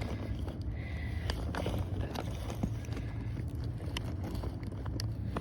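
Scattered clicks, knocks and rustles of small objects being rummaged through while searching for a knife, over a steady low rumble.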